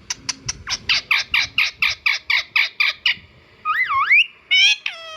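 Indian ringneck parrot calling: a fast run of short squawks, about five a second, for three seconds, then a warbling whistle that swoops up and down, and a falling call near the end.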